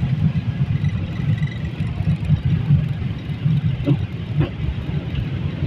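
Airliner cabin noise: a steady low rumble of the jet engines and airflow heard from a passenger seat.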